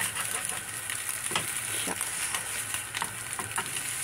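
Egg frying in oil in a nonstick pan, sizzling steadily, with a few short scrapes and taps of a spatula against the pan as the egg is cut in half and turned.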